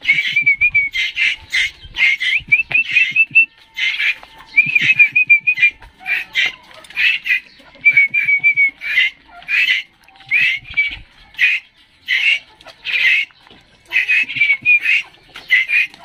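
Asian koel fledglings giving harsh, rasping begging calls, repeated several times a second in clusters, with thin warbling whistles mixed in. They are hungry chicks begging for food.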